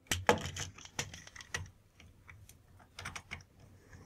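Small irregular clicks and taps of a screwdriver and the plastic parts of a small breaker box as it is put back together, most of them in the first second and a half and again around three seconds in.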